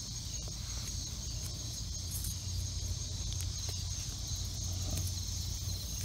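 Steady high chirring of insects over a low rumble, with faint soft scratches of a hand digging through loose potting soil.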